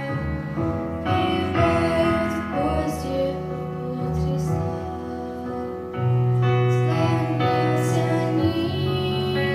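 Slow, gentle song music with piano.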